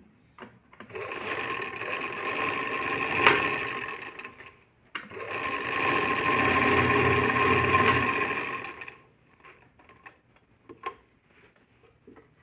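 Domestic straight-stitch sewing machine stitching a test seam through cloth with a newly fitted needle. It runs for about four seconds, stops briefly with a click, then runs again for about four seconds; a few faint clicks follow after it stops.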